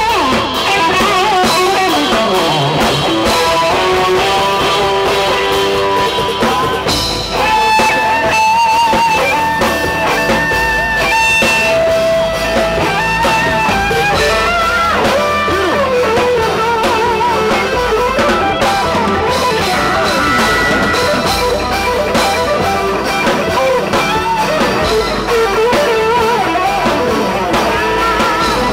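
Live band playing an instrumental passage: an electric guitar lead with bent, wavering notes over a drum kit with cymbals.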